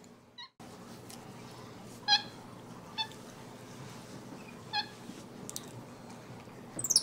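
White-faced capuchin monkey giving three short, high chirps a second or two apart, over quiet room tone, with a quick high squeak falling in pitch near the end.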